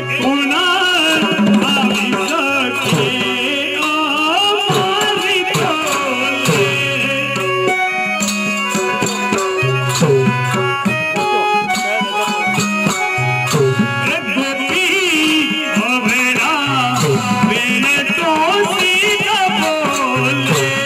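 Instrumental interlude of Gujarati devotional raas folk music: a steady drum beat with a repeating bass line under an ornamented, wavering melody instrument.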